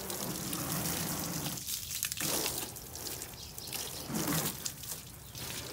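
Water from a garden hose spraying and splashing onto a car's rear window and bodywork, with a couple of brief breaks in the spray.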